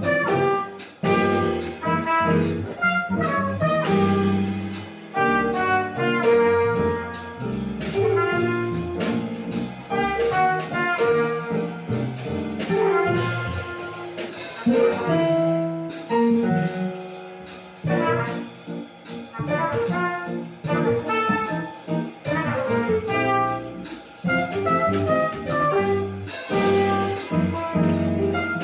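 Live jazz quartet: a trumpet leading over a Nord Electro keyboard, an upright double bass and a drum kit with ride cymbal, playing continuously.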